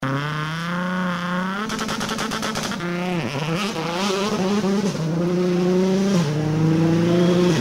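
Rally car engine running at high revs, its pitch stepping down and up as it shifts and lifts off, with a rapid string of crackles about two seconds in.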